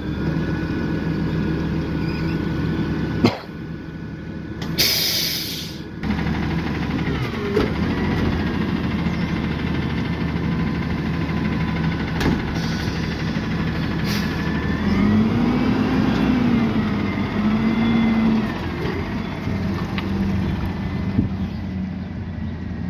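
Peterbilt 520 garbage truck with a Rapid Rail automated side loader running, with a short, loud hiss of air brakes about five seconds in. Later the engine revs up and settles back for a few seconds.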